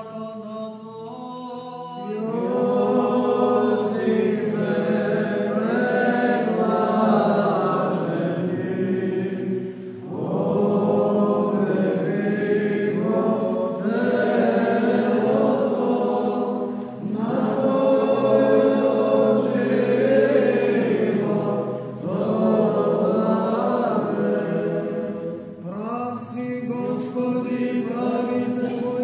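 Choir of Orthodox monks singing a Paschal sticheron in Byzantine chant, in Old Slavonic: a melodic line in long phrases over a held low drone. Softer for the first couple of seconds, then fuller, with short breaks between phrases.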